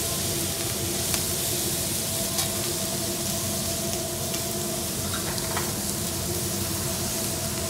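Shrimp and vegetables sizzling on a hot steel teppanyaki griddle, with a few sharp clicks of a metal spatula and fork against the plate, over a faint steady hum.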